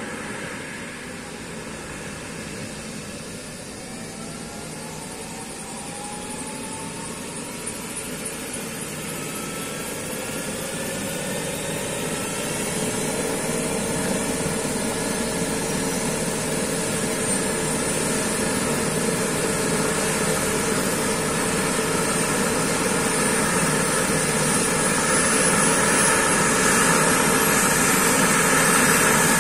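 Eurocopter EC135 air ambulance helicopter's twin turbine engines spooling up on the ground during start-up, a rising whine growing steadily louder as the rotor gathers speed.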